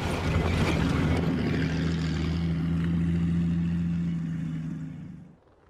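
Engine of an LMC Spryte tracked over-snow vehicle running steadily, with the crunch and clatter of its tracks over snow and broken ice; the sound fades out about five seconds in.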